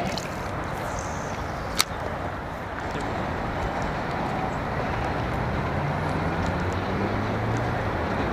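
Steady city traffic noise beside the river, with a motor vehicle's engine hum rising in pitch in the second half. One sharp click about two seconds in.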